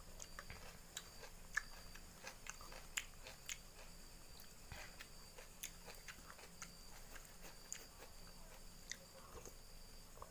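Faint chewing and biting: a person eating the soft pieces of ginger, garlic and shallot from a herbal drink, with irregular small crunches and mouth clicks.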